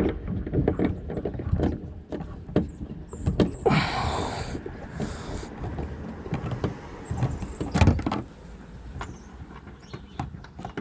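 A Torx screwdriver undoing a Torx 25 screw from plastic interior trim: scattered clicks and knocks of the tool and trim being handled, with a short rustling noise about four seconds in.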